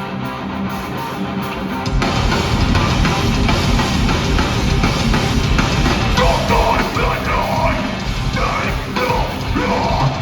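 Live metalcore band playing at full volume. A held guitar chord rings for about two seconds, then the full band comes in louder with drums and distorted guitars.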